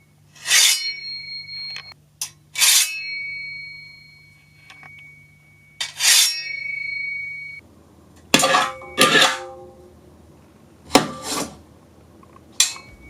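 Foley sword effects: metal blades scraped and struck against each other in short strokes, three of them leaving a clear ringing note that hangs on for a second or more, followed by duller metal scrapes and a click near the end.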